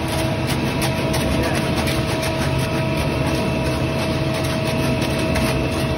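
Concrete mixer truck's engine running steadily with a constant hum while wet concrete is poured down its chute. Shovels and hoes scrape faintly through the wet concrete.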